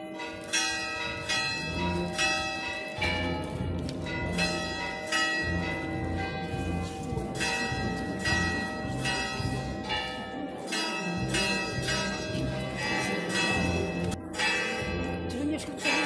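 Church bells ringing a quick festive peal, struck about twice a second, with the tones ringing on between strokes.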